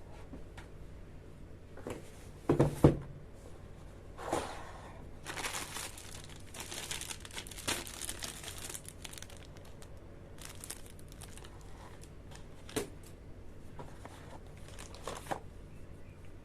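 Graphics card packaging being handled: a knock about two and a half seconds in, the loudest sound, then plastic crinkling and rustling for several seconds, with a few scattered small clicks.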